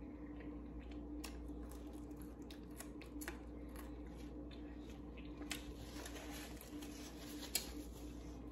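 Faint, scattered crisp clicks and crackles of someone eating and handling fried food, one sharper crack about three quarters of the way through, over a steady low hum.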